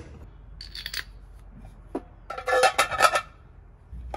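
Metal tools and hardware handled with a light clatter, then a harsh metallic sound of about a second, holding several steady pitches, about two and a half seconds in.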